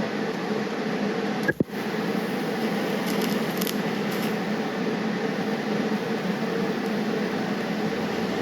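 Gas brazing torch flame hissing steadily as a nut is brazed onto a steel clamp, with a momentary break about one and a half seconds in.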